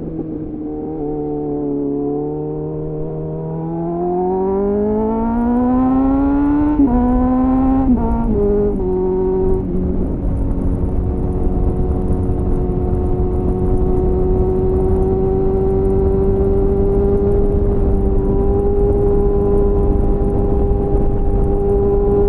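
2001 Suzuki GSF 600 Bandit's inline-four through an aftermarket slip-on exhaust (a clone of the SC-Project CR-T with a home-made dB killer), heard onboard. The revs sag, then climb steadily, drop in a quick run of upshifts about seven to nine and a half seconds in, and then settle to a steady cruise, with wind rush underneath.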